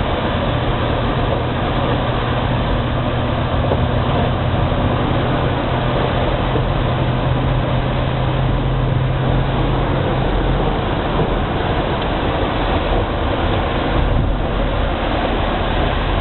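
Truck engine and road noise heard inside the cab while driving: a steady low hum over a constant rush.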